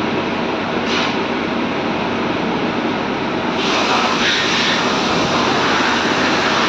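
CNC lathe running steadily, its spindle turning a steel shaft against a diamond burnishing tool: a steady machine whirr and hiss. It grows louder and hissier about three and a half seconds in.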